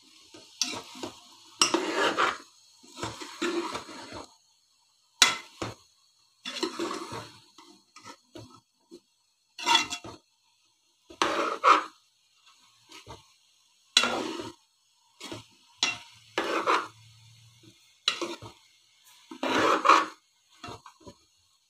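Steel ladle stirring and scraping cauliflower and chicken in masala around a metal pot while it is fried, in about a dozen separate strokes.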